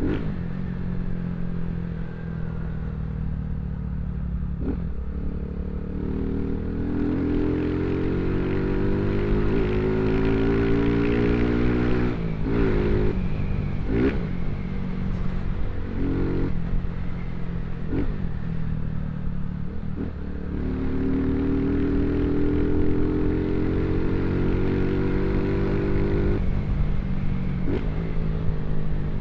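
Motorcycle with a loud aftermarket exhaust being ridden, the engine pitch climbing twice as it accelerates and then dropping sharply at each gear change or throttle lift.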